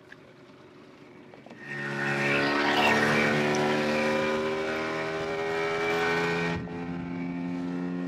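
Small tiller outboard motor on an inflatable dinghy running steadily at speed, a single even engine tone under the rush of water and wind. The sound starts suddenly about a second and a half in, and the rushing drops away near the end while the motor keeps running.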